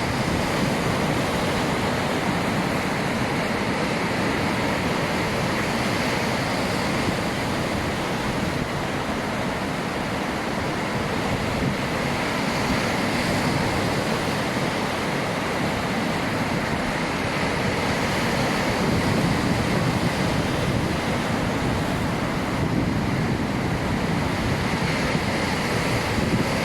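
Sea waves rolling in and washing up the shore: a continuous rush of foamy surf, swelling a little louder twice in the second half.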